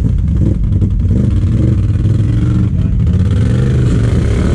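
ATV engine running and revving unevenly as the quad works through a deep mud hole.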